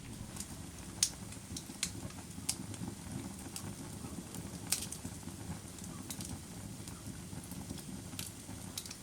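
Firewood burning: a steady low rumble of flames with irregular sharp crackles and pops, the loudest about a second in and near the middle.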